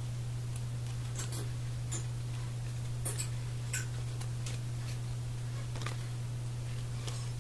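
Trading cards being handled and slid against one another, giving a scattering of light clicks and flicks, over a steady low electrical hum.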